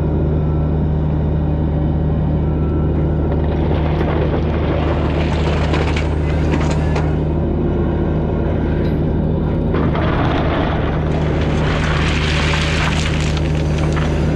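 Diesel engine running steadily. A hissing, scraping noise comes in over it twice, about four seconds in and again about ten seconds in.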